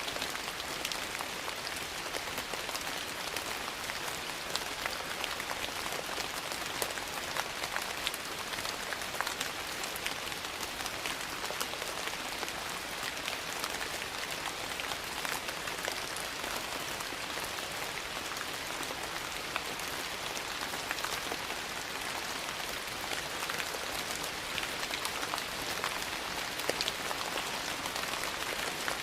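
Steady rain falling, an even hiss dotted with many small, sharp drop ticks.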